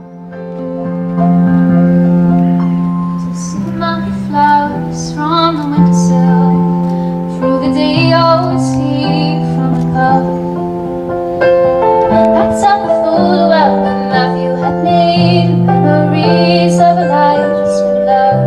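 Music: sustained keyboard chords with a woman singing a melody over them, fading in at the start.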